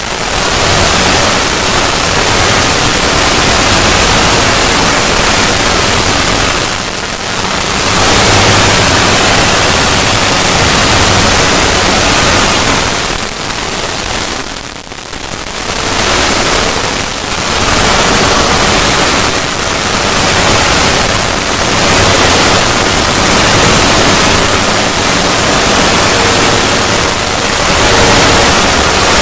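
Loud, harsh static-like noise from a distorted logo sound effect, with brief dips about seven seconds in and again around fourteen to fifteen seconds in.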